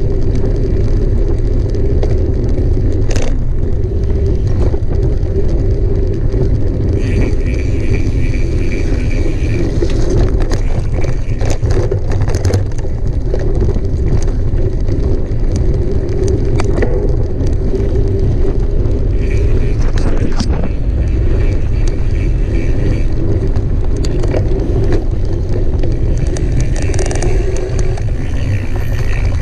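Mountain bike ridden over rough trail: a steady low rumble of wind and tyres on the microphone, with frequent rattles and knocks from the bike. Three times the freewheel hub buzzes steadily for a few seconds while the rider coasts.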